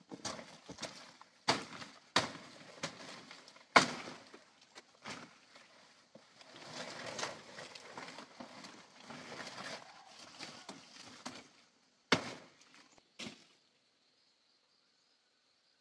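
Machete chopping through banana plant stalks: a few sharp chops, the loudest about four seconds in, with rustling and crunching of the big leaves and stems between them and two more chops near the end. After that only a faint steady high tone remains.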